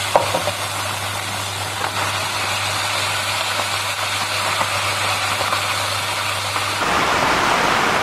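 Food sizzling as it is stir-fried in a wok with a wooden spoon, with a few light taps of the spoon, over a steady low hum. Kimchi is tipped in and stirred through, and the sizzle grows louder near the end as the hum drops out.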